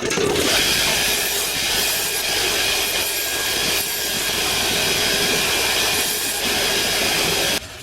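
Belt grinder running with a chef's knife's steel edge held against a worn 120-grit belt, grinding the edge bevel: a steady, loud hiss that cuts off abruptly near the end.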